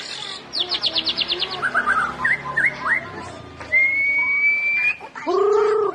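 White-rumped shama singing a varied song. It opens with a quick run of about ten short falling whistles, then gives a few short notes and one long level whistle, and ends with a harsh, buzzy note.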